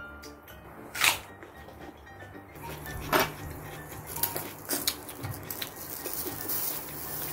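Raw beef sizzling on the wire grate of a mini charcoal brazier as pieces are laid on with metal tongs, the sizzle starting a little before halfway, with light clicks of tongs on the grate. A sharp knock about a second in; background music throughout.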